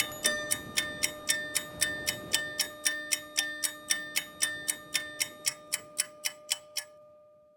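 Samsung Galaxy S8 ringtone: crisp electronic ticks, about four a second, over a few held tones. Near the end the ticking stops and a single held tone fades away.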